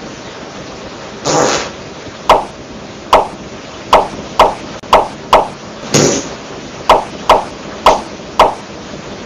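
A run of about a dozen short, sharp sound effects, unevenly spaced at roughly two a second, two of them longer and hissier, over a steady low hiss.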